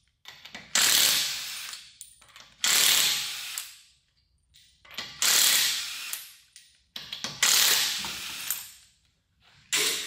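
Impact wrench zipping lug nuts off a wheel, four short runs about two seconds apart. Each one starts sharply and winds down over about a second.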